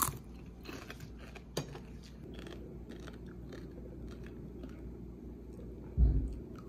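A crisp crunching bite into pan-fried moi (Pacific threadfin) with super crispy skin right at the start, then faint crunches and small clicks as chopsticks pick at the fish. A dull thump about six seconds in.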